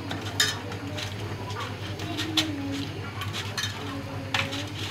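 Hand mixing spice-coated pangas fish pieces in a stainless steel bowl: scattered clicks and knocks of the fish and fingers against the metal.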